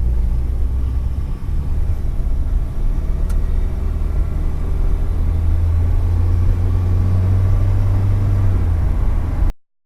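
1998 Toyota pickup truck driving on the road, with a steady low engine and road rumble that cuts off suddenly near the end.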